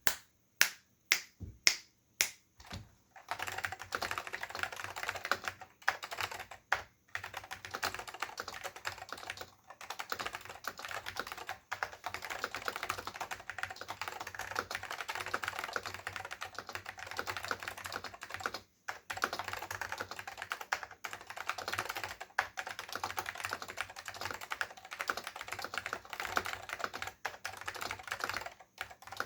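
Dell AT101 keyboard with Alps SKCM Salmon switches and PBT dye-sublimated keycaps being typed on. It starts with about six separate, loud keystrokes roughly half a second apart, then goes into fast, continuous typing broken by a few brief pauses.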